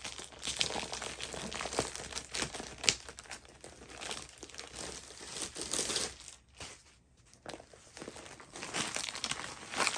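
Plastic packaging crinkling and rustling as a rolled diamond-painting canvas is unwrapped by hand, with a brief lull about two-thirds of the way through.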